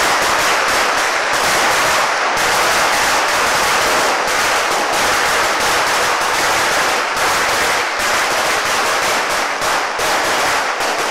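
A long string of firecrackers going off in a dense, continuous rapid crackle, loud and steady, breaking up just after it ends.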